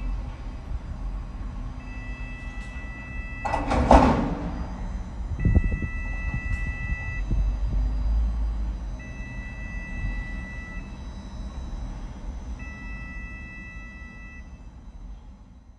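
Rail-mounted container gantry crane travelling along its track, its warning signal sounding as a steady two-pitch tone for about two seconds at a time, every three and a half seconds, over a low rumble. A short loud hiss or screech about four seconds in.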